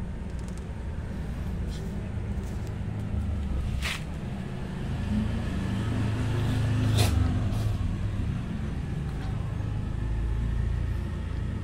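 A motor vehicle engine running close by, a low steady hum that swells to its loudest about seven seconds in, with two sharp clicks, the second at the loudest point.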